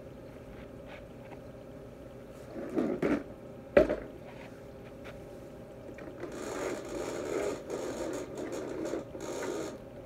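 Vacuum cleaner running steadily while shoes step and shuffle on the carpet, with a sharp knock just under four seconds in. From about six seconds there is uneven scraping and brushing on the carpet.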